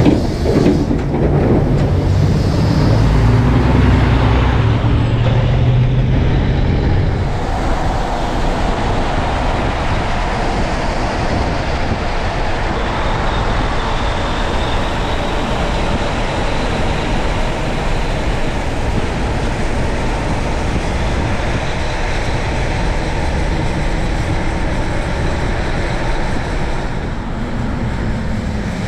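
A heavy truck's diesel engine goes by close in the first several seconds, loudest about four seconds in, then steady roadway traffic noise of tyres and engines carries on.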